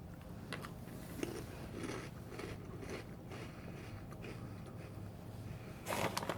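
A person chewing barbecue-flavoured Cheetos corn puffs close to the microphone: irregular soft crunches and mouth sounds, with a louder crunch near the end.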